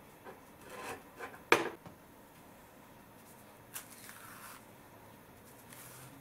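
A slice of bread rustling as it is pressed into a metal sandwich toaster, with a sharp knock about a second and a half in. Near the middle, a banana's stem snaps with a click and its peel tears back.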